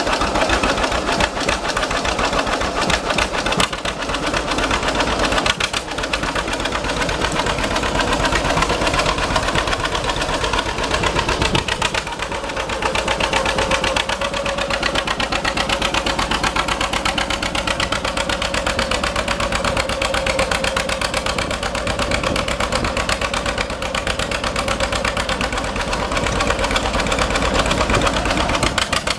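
1949 John Deere A tractor's two-cylinder gas engine running steadily, with a rapid, even beat.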